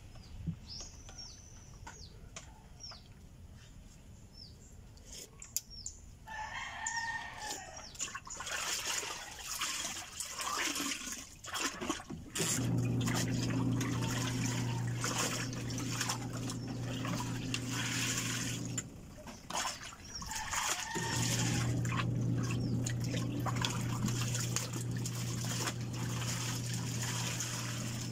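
A rooster crows once about six seconds in, with small bird chirps before it. Later a steady low hum starts, runs for about six seconds, breaks off and starts again, over a rushing hiss like running water. Light clinks of a spoon in a ceramic bowl are heard throughout.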